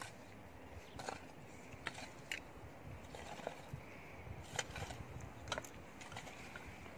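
Soil being dug with a spade and worked by hand: scattered, irregular short scrapes and clicks over a low background rumble.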